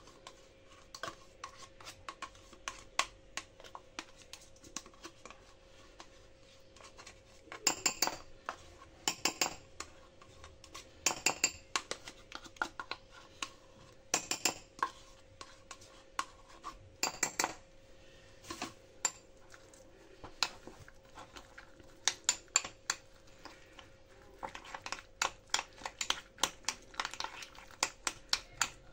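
Metal spoon clinking and scraping against a ceramic bowl and a plastic yogurt cup as yogurt is spooned out and stirred into chopped dates and walnuts: irregular clusters of sharp clinks, with a quicker run of clinks near the end as the mixture is stirred.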